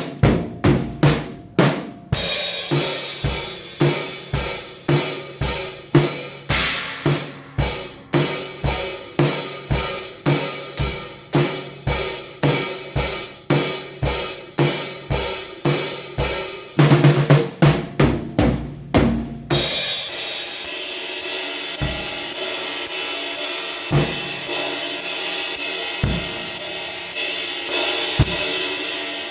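Drum kit played in a steady groove of about two hits a second. About 17 seconds in comes a dense fill, and after it a lighter cymbal-led pattern with occasional kick-drum hits.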